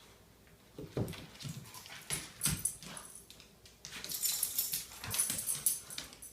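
Two dogs play-wrestling: short dog vocalisations and scuffling noise in irregular bursts, starting about a second in and busiest near the end.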